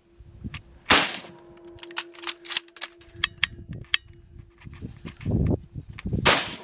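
Two shots from a Mosin-Nagant Model 91/30 bolt-action rifle firing 7.62×54mmR, about five seconds apart, each a sharp crack with a ringing tail. Smaller clicks and knocks fall between them.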